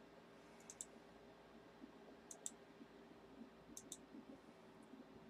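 Near silence broken by a few faint clicks of a computer mouse, mostly in quick pairs.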